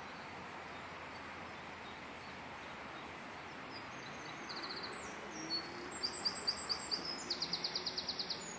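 A small songbird singing, starting about halfway through: a run of high, quick notes and short trills, ending in a fast trill of about ten notes a second. Under it a steady outdoor hiss.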